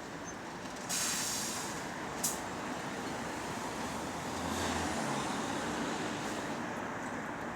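Bus in street traffic, with a sharp hiss of air about a second in that fades away, a shorter hiss just after two seconds, and a low engine hum between about four and five seconds.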